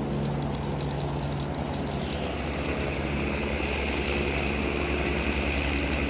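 Zip-line pulley rolling along a steel cable: a steady high whine that comes in about two seconds in, with light clicking. Under it runs the low steady drone of a helicopter.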